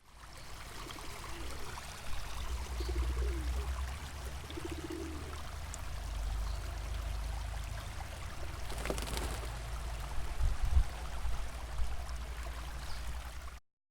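A small brook trickling and gurgling steadily over a low rumble, cutting off abruptly near the end.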